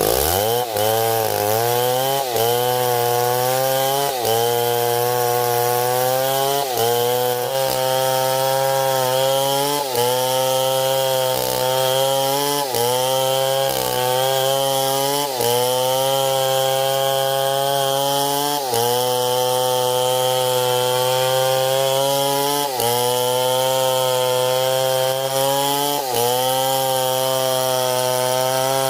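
STIHL 070 two-stroke chainsaw revving up at the start, then held at high revs while cutting wood. Its pitch sags and recovers every couple of seconds as the chain bites in under load.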